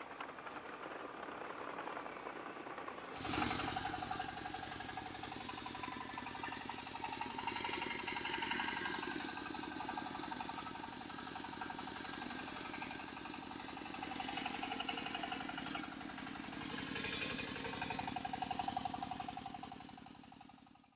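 Small motor and gearing of a radio-controlled model vehicle running with a rapid rattle. About three seconds in the sound turns fuller and louder, and it fades out at the end.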